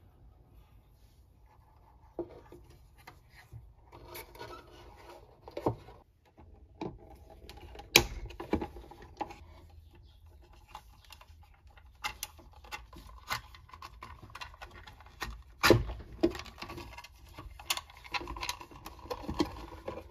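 Plastic old-work electrical boxes being handled and pushed into drywall cutouts while a Romex cable is fed into one: scattered plastic clicks and knocks with rubbing and scraping between them, the two sharpest knocks about 8 and 16 seconds in.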